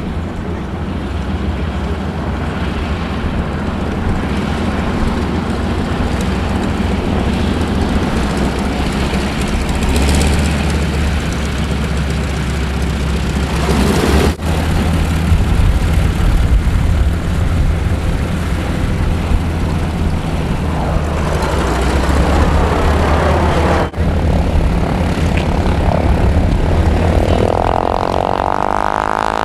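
A formation of North American AT-6 trainers flying by, their Pratt & Whitney R-1340 radial engines and propellers making a loud, steady drone. Near the end the sound takes on a sweeping, swirling tone as the planes pass.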